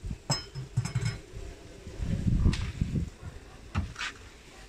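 Sharp metal clinks and knocks as a steel vertical roasting rack in a cast-iron pan is lifted out of a tandoor and handled. There is duller low thudding a couple of seconds in, and two more clinks near the end.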